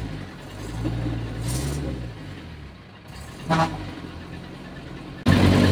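Engine sound that rises and falls in pitch, a short sharp noise partway through, then a sudden much louder burst near the end as the engine catches and runs.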